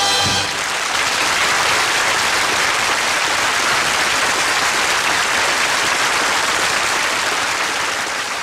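The song's last chord cuts off about half a second in, giving way to steady audience applause that begins to fade near the end.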